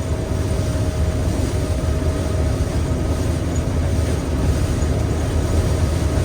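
Combine harvester running steadily while harvesting soybeans: a constant low mechanical drone with a steady thin whine over it.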